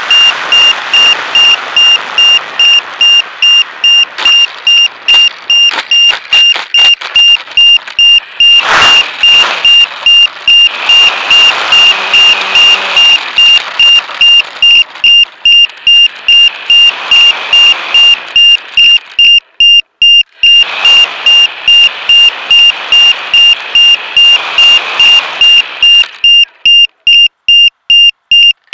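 Rapid, regular electronic beeping, one high piercing tone over and over, from the grounded HobbyZone Super Cub RC plane, sounding like a downed-model alarm. A rushing noise swells and fades behind it several times, then drops away near the end, leaving the beeps alone.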